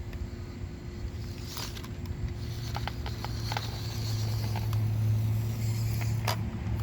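WPL C14 RC rock crawler's electric drive whining steadily as it crawls over rocks, louder in the second half, with scattered clicks and knocks of the tyres and chassis against stone.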